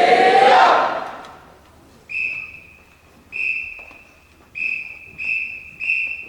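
A loud shout or cheer with a held voice in it fades away within the first second. Then a referee-style whistle, typical of a drum major's count-off to a marching band, gives five short blasts, the last three closer together.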